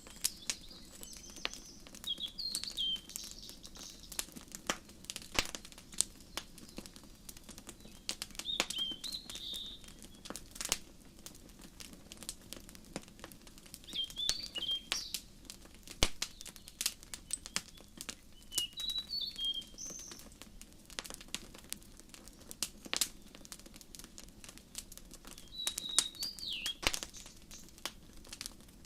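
Wood fire crackling with frequent sharp pops, and a songbird singing a short chirping phrase about every five to six seconds.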